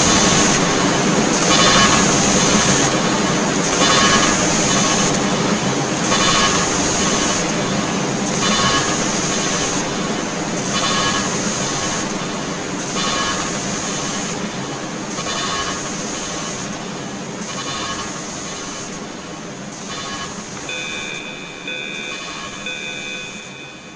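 Experimental drone-noise music: a dense, grinding wall of noise with a steady high whine and a loud pulse recurring every second or two, slowly fading out. Near the end two steady high tones come in.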